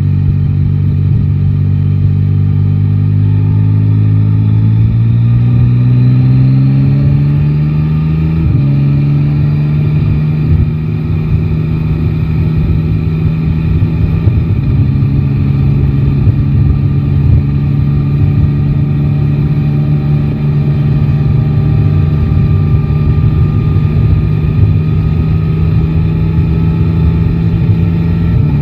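Yamaha Tracer 9 GT's three-cylinder engine pulling up through the revs, shifting up with a sudden drop in pitch about eight seconds in, dipping briefly again near the middle, then holding a steady note at a constant speed. A low rumble of wind and road noise runs underneath.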